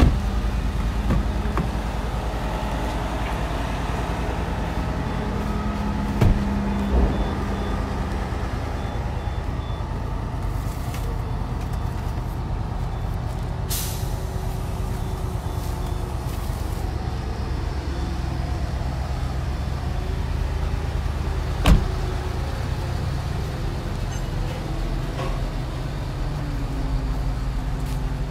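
A vehicle engine idling steadily with a low, even rumble, broken by a few sharp clicks or knocks, the loudest about three-quarters of the way through.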